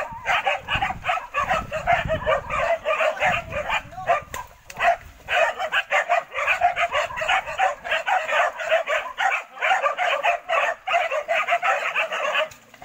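A pack of hunting dogs barking and yelping rapidly and without letup, their calls overlapping, as they hold a wild boar at bay. There is a brief lull a few seconds in.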